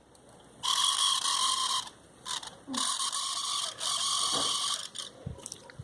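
A small battery-powered electric device, run from the homemade 9 V battery connector as a test, whirring with a steady whine in short runs of about a second each, switched on and off about three times.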